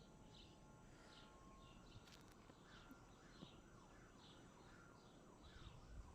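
Faint bird calls: short high chirps repeating about twice a second, with a run of short falling notes partway through.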